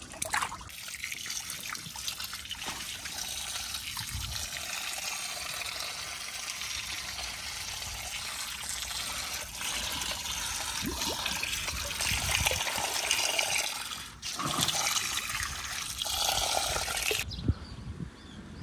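Stream water running and trickling steadily, then cutting off suddenly near the end.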